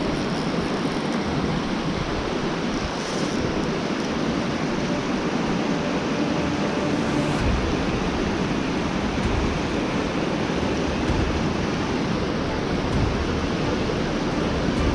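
Creek water rushing steadily over shallow rapids and rock ledges: a constant, even hiss of moving water.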